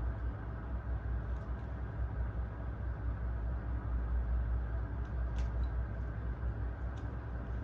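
A steady low rumble, with a few faint light clicks.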